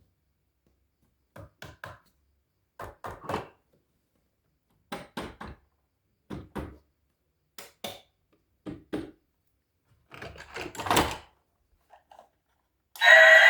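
Clusters of two or three sharp knocks, one cluster about every one to two seconds with silence between, like hard objects tapped or set down on a hard surface. Loud music begins near the end.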